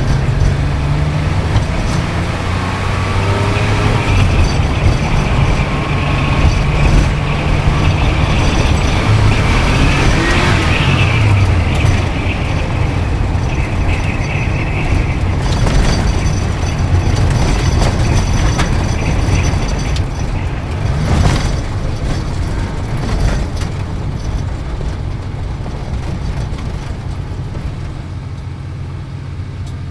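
Sports car engine running hard under a continuous rushing noise, its pitch holding steady at first, then sliding up and down about ten seconds in.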